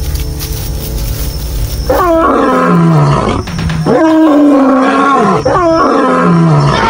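Lion roaring: three long roars in a row, beginning about two seconds in, each dropping in pitch as it ends. A low rumble comes before them.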